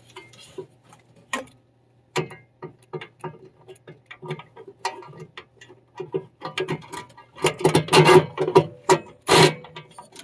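Milwaukee M12 cordless driver run in short spurts, with irregular clicks of screws and metal parts, as mounting screws are driven. The densest and loudest runs of clicks come in the last few seconds.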